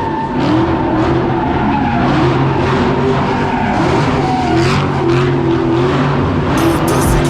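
A car engine running loudly, its pitch wavering up and down a little.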